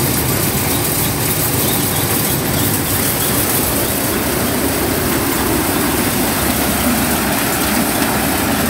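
Maize thresher (corn sheller) running steadily while corn cobs are fed into it, a loud continuous machine noise with no pauses.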